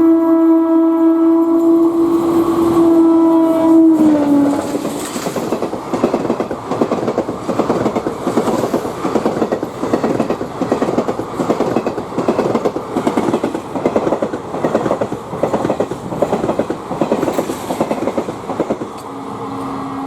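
Indian express train passing at speed: the locomotive horn sounds a long steady blast that drops in pitch about four seconds in as it goes by, then the coaches' wheels run past in a fast, even clickety-clack over the rail joints. Near the end a lower horn tone starts.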